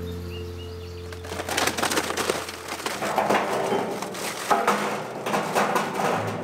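Charcoal briquettes poured from a paper bag into a metal smoker firebox, a dense clatter and crackle with paper rustling, starting about a second in. Background music plays underneath.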